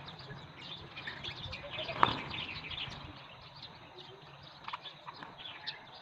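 A flock of house sparrows chirping busily, with wing flutters as birds land and take off; the chirping thins out after about three seconds. One sharp tap about two seconds in.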